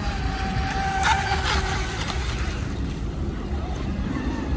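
Delta Force Mini Storm RC speedboat's 3400KV brushless electric motor running at speed across the water. It is a steady high whine that climbs slightly about a second in, then fades as the boat moves off.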